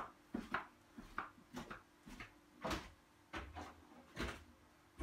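Irregular knocks and clicks of someone moving about the narrowboat's wooden fit-out, footfalls on the boards and light bumps against the woodwork, several a second. A faint steady hum runs underneath.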